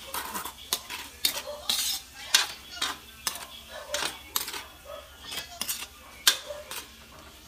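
Spatula scraping and clanking against a metal wok while stirring browning ground pork, in irregular strokes about two a second.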